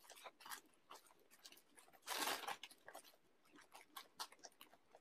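Paper burger wrapper crinkling and rustling as it is handled and unwrapped: many small crackles, with one louder rustle about two seconds in.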